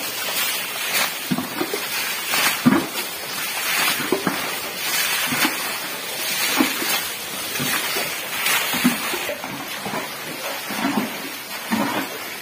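Floodwater being bailed by hand: repeated splashing and sloshing as water is scooped up with plates and a plastic can and poured out, with irregular splashes roughly once a second.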